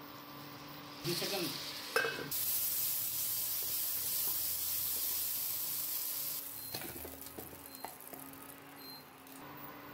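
Sliced button mushrooms sizzling in hot oil in a non-stick pan while a wooden spatula stirs and scrapes them. The sizzle starts about a second in with a scrape, grows louder, and stops short about six seconds in; a few light knocks and scrapes follow as the mushrooms are tipped out.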